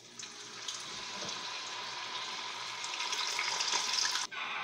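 Churro dough sizzling as it goes into hot oil in a wok: a steady, dense frying hiss that starts just after the beginning, then breaks off sharply near the end before picking up again.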